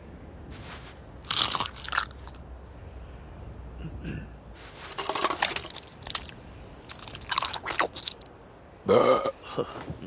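Cartoon sound effects of crunchy bites and chewing, coming in several separate bursts.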